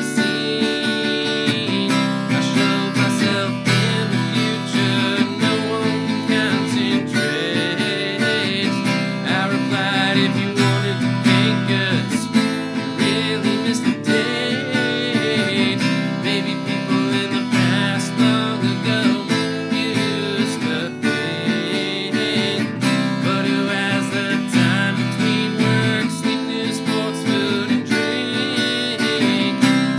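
Acoustic guitar strummed steadily in chords, with a man singing over it.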